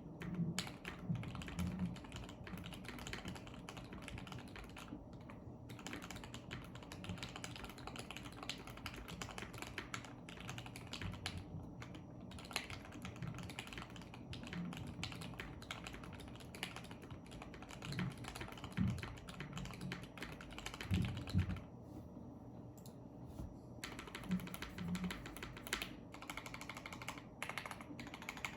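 Continuous typing on a custom 60% mechanical keyboard with lubed, filmed Alpaca linear switches (Krytox 205g0), a polycarbonate plate and PBT keycaps: a fast, irregular run of keystrokes. There are short pauses about 5 and 12 seconds in and a longer one about 22 seconds in, and a few louder strokes shortly before it.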